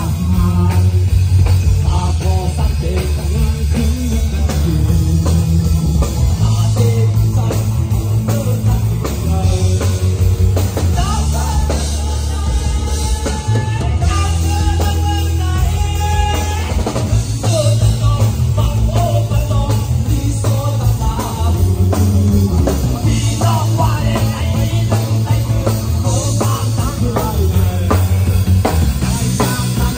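A Shan-language rock-style song: singing over guitar, a bass line and a drum kit.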